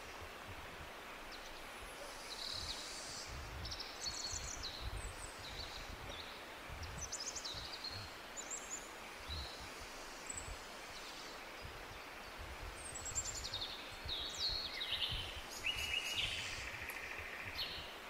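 Several small forest birds chirping and trilling: short, high calls scattered throughout and busier near the end, over a steady hiss and a low fluttering rumble.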